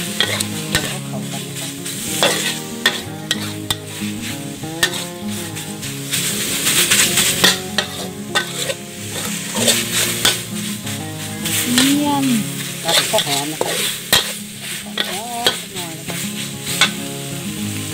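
Pork pieces and red curry paste sizzling in a metal wok while a metal spatula stirs them, scraping and clicking against the pan many times.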